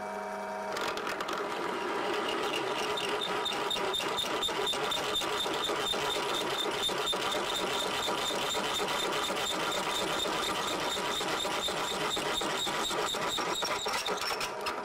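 Bench drill press with a 16 mm cobalt drill bit cutting into a metal workpiece held in a vise. The motor's steady hum gives way about a second in to a rough, chattering cut with a rapidly pulsing high whine, and the plain motor hum returns near the end as the cut stops.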